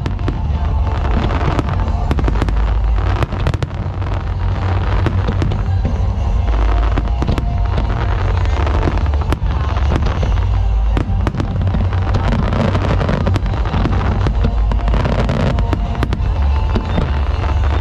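Aerial fireworks display in a dense barrage: shell bursts and crackle follow one another without a break over a constant low rumble.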